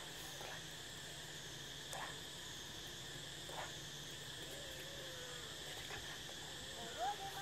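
Steady insect chorus, an even high-pitched drone, over a faint low hum with a few soft ticks. Near the end a brief pitched call rises and then holds.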